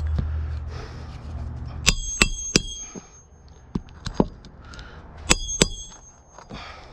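Hammer driving a nail back into a roof shingle: two sets of three quick, ringing metal-on-metal strikes a few seconds apart, with a few lighter taps between them.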